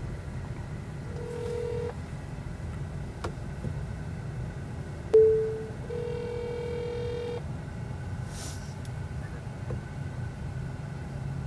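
Outgoing phone call ringing through the car's speakers: a ringback tone about a second in, a short sharp tone about five seconds in, then a longer ring of about a second and a half, over the low hum of the car cabin.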